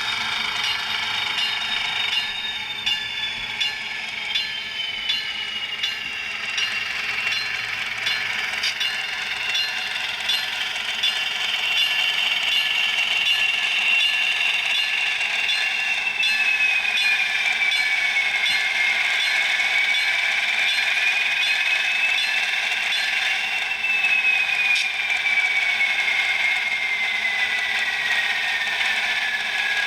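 HO scale model passenger train running along the track: a high motor whine that drifts down in pitch as the train slows, rising once briefly before falling again near the end, over a steady rattle and clicking of wheels on the rails.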